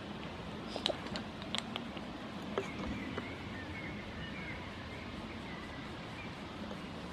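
Quiet outdoor background with a few light clicks in the first two seconds and faint distant bird chirps.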